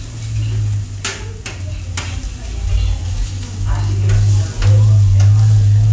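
Metal blade scraping and clicking against a steel flat-top griddle as peppers and onions are stirred, with food sizzling. A loud, steady low hum runs underneath.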